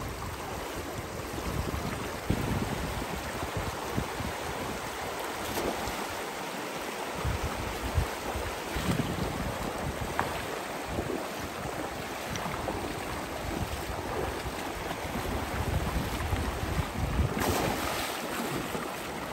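Stream water rushing steadily, with wind buffeting the microphone.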